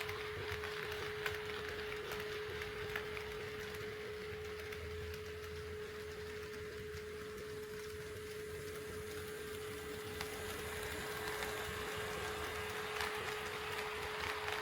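HO-scale model train running on KATO Unitrack: the wheels roll with a steady hiss and small clicks over the rail joints, quieter in the middle and louder again toward the end. A steady hum at one pitch runs underneath.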